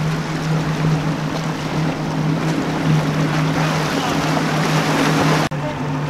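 Outboard engines of a center-console fishing boat running at speed, a steady drone under the rush of water and wind. The sound breaks off abruptly about five and a half seconds in and picks up again at once with the same drone.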